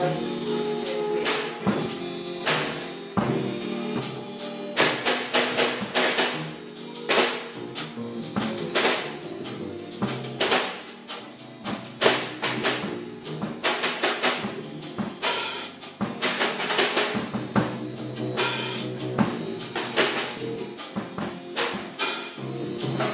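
Snare drum and cymbal played with sticks alongside an upright double bass, in a dense instrumental jazz passage.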